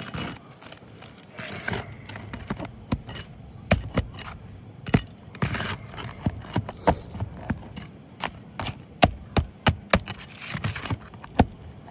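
Pry bar working roofing nails out from under asphalt shingles: a run of irregular sharp metal knocks and taps, with scraping and rustling of the shingles between them.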